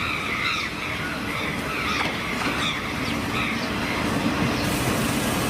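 Train running on the rails with a continuous low rumble, high squeaky chirps over the first few seconds, and a steady hum coming in about halfway; a rush of hiss joins near the end.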